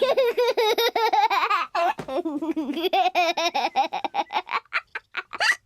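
Cartoon characters' laughter: a rapid run of high 'ha-ha-ha' pulses, with a lower voice joining about two seconds in and the laughing thinning out near the end.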